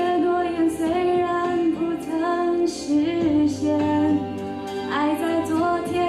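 A woman singing a melody solo into a microphone, with held notes that glide between pitches, over musical accompaniment.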